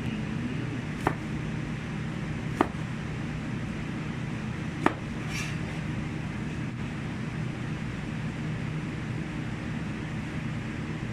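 Three sharp kitchen knocks, spaced a second and a half to two seconds apart, over a steady low hum.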